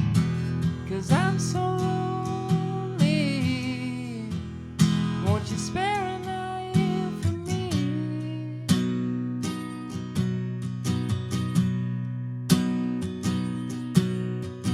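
Acoustic guitar being strummed through a song passage, with regular sharp accented strokes over ringing chords.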